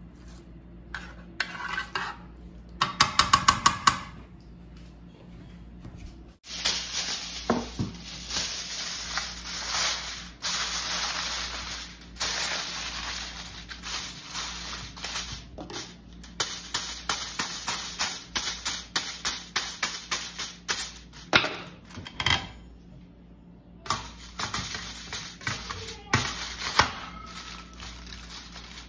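Aluminium foil crinkling and crackling as it is spread and smoothed over a tray by hand, from about six seconds in. Before that, a spatula scrapes through a tray of rice, with a quick run of loud taps.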